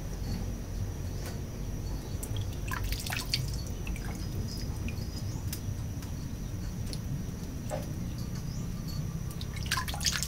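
Water dripping and small splashes as pieces of boiled tongkol are handled and dipped over a bowl of water, in a few scattered bursts, over a steady low hum.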